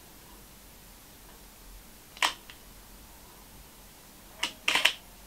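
Contax N1 35mm SLR firing in its 2-second self-timer mode with automatic mirror lock-up. A single click about two seconds in is the mirror locking up. About two seconds later the shutter clicks, followed by a short run of mechanical clicks as the mirror returns and the motor advances the film near the end.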